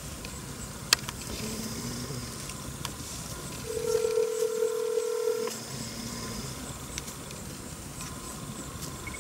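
Telephone ringback tone: one steady electronic beep of about two seconds near the middle, over a low hiss. A sharp click comes about a second in.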